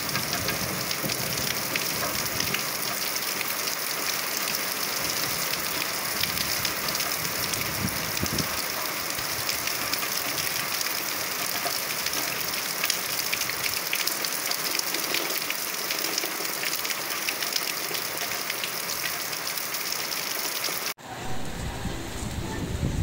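Steady rain falling on a paved sidewalk and a flooded street gutter: a dense, even hiss full of fine drop patter. About two seconds before the end it cuts off sharply, and a low rumble of wind on the microphone takes over.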